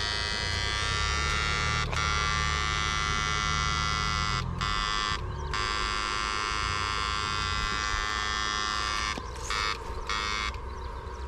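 Battery-powered backpack electrofishing unit buzzing: a steady high electric whine with many even overtones. It cuts out briefly twice around the middle and twice near the end, then weakens.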